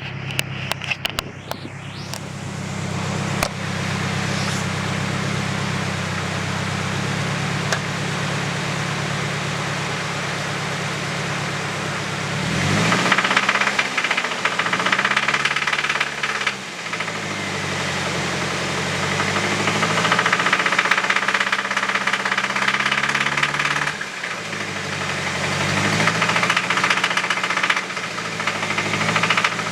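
Nissan KA24DE 2.4-litre inline-four idling with a knock, then revved up and back down about three times, to no more than about 1800 RPM, from about 12 seconds in. The knock is what the owner takes for a rod knock, caused by oil starvation from a low oil level.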